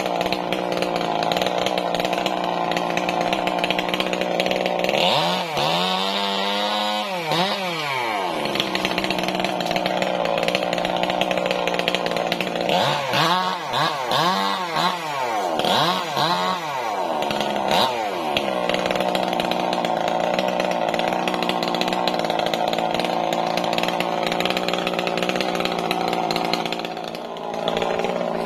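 Two-stroke chainsaw running, mostly steady, with its engine pitch rising and falling in several swells: about 5 to 8 seconds in and again between about 13 and 18 seconds in.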